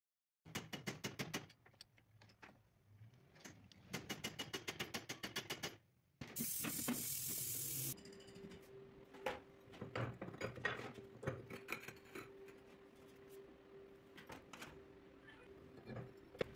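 Metalworking sounds: two runs of fast, even metallic clicks, like a ratchet, a short burst of hiss about six seconds in, then scattered taps and knocks on metal over a faint steady hum.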